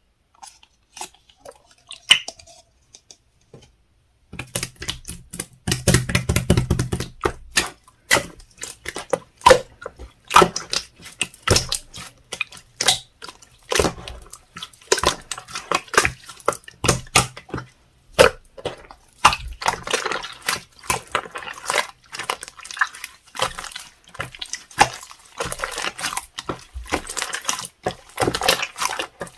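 Clear slime being squished and stretched by hand, making wet clicks and pops; sparse at first, it becomes a dense, irregular crackle from about four seconds in.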